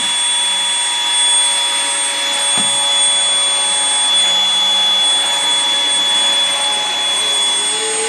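Tefal Air Force Extreme cordless stick vacuum running at its first (lowest) speed while vacuuming a hard floor: a steady high motor whine over rushing air.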